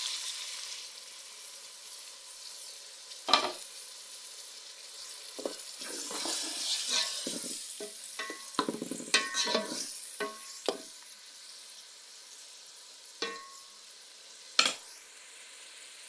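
Tomatoes frying in a pot of hot oil: a steady sizzle, loudest just as they go in, while a spoon stirs, scraping and knocking against the pot, busiest in the middle, with a sharp knock a few seconds in and another near the end.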